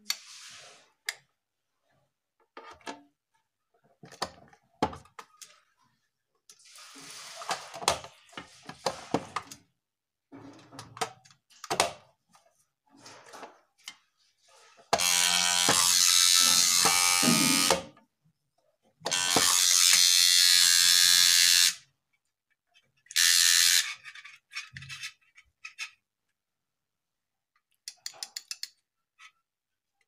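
Homemade pencil-box security alarm's buzzer going off in three loud bursts, two of about three seconds and a last short one near the end, set off by the tin's lid being opened. Before it, clicks and scrapes of the metal tin being handled.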